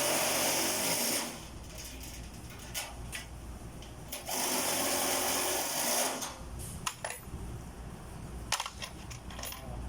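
A power tool running in two bursts of about two seconds each, one at the start and one about four seconds in, with scattered sharp clicks and knocks between them.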